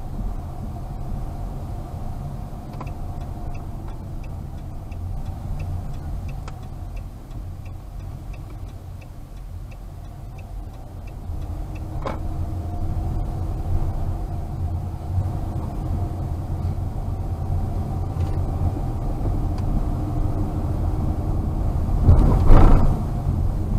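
Car cabin while driving slowly: steady low engine and road rumble. From about three seconds in to about eleven seconds, a turn-signal flasher ticks faintly about twice a second. Near the end comes a brief, loud rush of noise lasting about a second.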